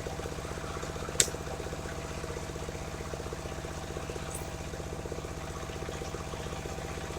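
Engine of a portable circular-saw sawmill running steadily with an even pulse, with no cut under way. One sharp click about a second in.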